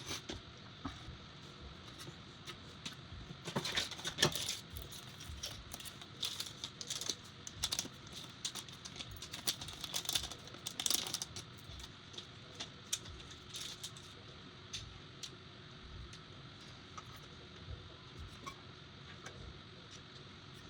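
Scattered light clicks, taps and rustles of small computer parts being handled while an M.2 SSD heatsink is fitted, busiest a few seconds in and again around the middle.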